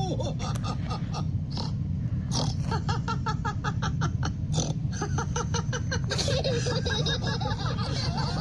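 Cartoon pig characters snorting, then laughing together in quick repeated ha-ha's from about two seconds in, over a steady low hum.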